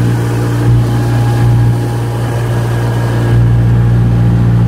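The engine of a 1981 Polsport Chojnice 'Kasia' motorboat running steadily under way, one unchanging pitched drone with water noise from the hull beneath it.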